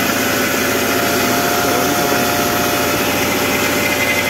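2008 Subaru Impreza's flat-four boxer engine idling steadily with the hood open, shortly after a cold start at −30 °C; the revs have already dropped from the fast cold idle. A thin steady whine runs over the engine noise.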